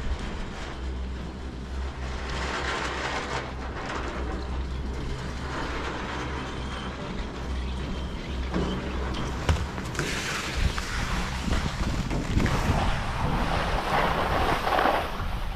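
Riblet center-pole double chairlift running: a steady low hum with a few held tones as the chair rides in under the top terminal. About nine and a half seconds in there is a single knock, then a rushing hiss of skis sliding on snow as the rider unloads and skis away.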